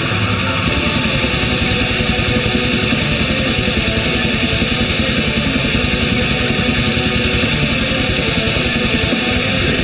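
Black metal music: heavily distorted electric guitars over fast, dense drumming, loud and unbroken.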